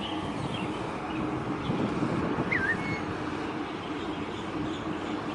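Steady waterside ambience: a low hum and rumble under wind noise, with one brief high chirp about two and a half seconds in.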